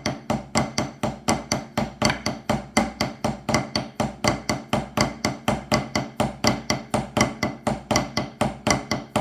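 Drumsticks playing the Swiss Army triplet rudiment on a drum: a steady, even run of strokes, about five to six a second, each group led by a flam.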